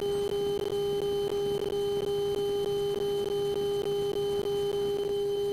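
Steady high-pitched electrical hum in a light aircraft's cockpit audio feed, with faint regular pulses about three times a second.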